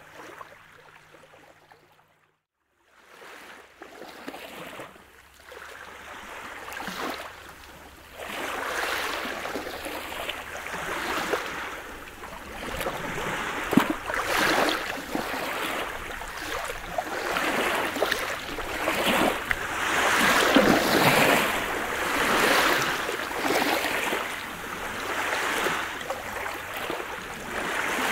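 Small waves from a calm sea lapping and washing up a pebble beach, each wash swelling and falling away every couple of seconds. Faint at first, with a brief drop to silence about two seconds in, then growing louder from about eight seconds on.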